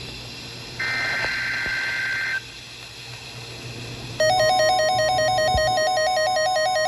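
EAS SAME header data burst, a harsh two-tone digital screech, about a second in and lasting about a second and a half. About four seconds in, a loud electronic alert tone starts, warbling rapidly between two pitches over a steady tone.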